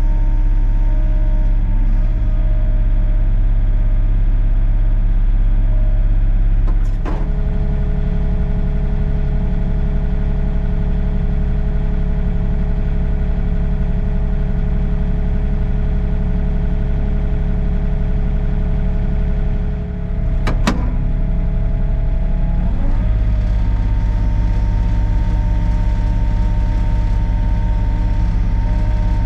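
Sany SY35U mini excavator's diesel engine running steadily under the operator, with steady whining tones over the engine. About seven seconds in the sound drops a little in level and shifts in tone, there is a sharp click near the twenty-one-second mark, and near twenty-three seconds it goes back to the earlier sound.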